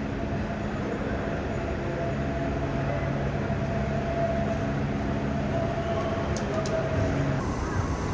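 Steady mechanical hum of an airport terminal hall, with a few low steady tones running through it and two faint clicks near the end. Just before the end the sound changes to open outdoor airfield ambience.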